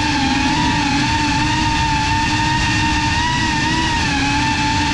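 Brushless motors and ducted propellers of a Geprc Cinelog35 cinewhoop whining at a steady cruise, recorded by the onboard GoPro. The pitch wavers slightly up and down with small throttle changes.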